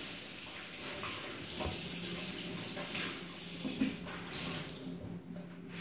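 Kitchen tap running into a stainless-steel sink as a cloth is rinsed under the stream; the water stops about four and a half seconds in. A short knock sounds just before it stops.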